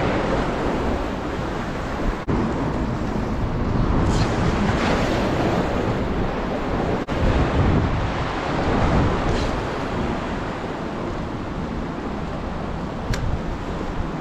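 Wind rushing across the microphone over the wash of water at the shoreline, a steady noise with two brief dropouts.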